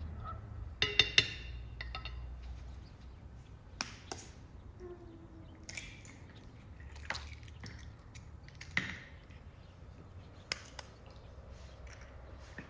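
Eggs being cracked against and into a ceramic bowl: a scattered series of sharp taps and clinks, the loudest a ringing clink about a second in.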